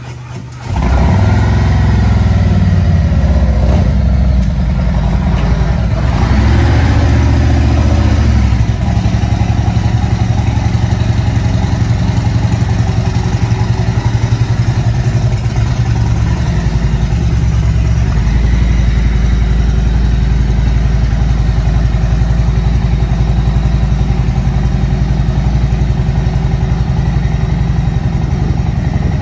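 V-twin touring motorcycle engine, loud from less than a second in. It is revved twice, then settles into a steady, pulsing idle.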